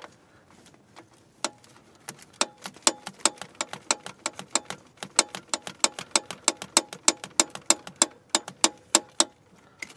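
Socket ratchet clicking on the 13 mm nut of a Land Rover Freelander starter motor's main cable terminal: a rapid, even run of sharp clicks, about five a second, starting about two seconds in and stopping shortly before the end.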